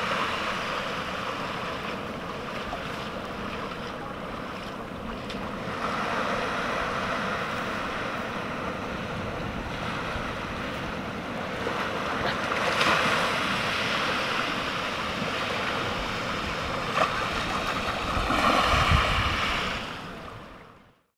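Ocean surf washing onto a rocky shore, swelling and easing a few times, with wind buffeting the microphone near the end before the sound fades out.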